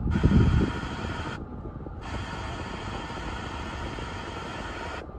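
Car FM radio tuned between stations, giving steady static hiss over a low rumble, loudest in the first half-second. The hiss cuts out for about half a second a little after one second in as the tuner steps to the next frequency, then comes back.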